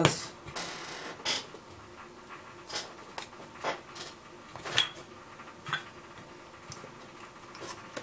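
Scattered light clicks and scrapes, about one a second, of a marker pen and a thin clear plastic lid being picked up and handled.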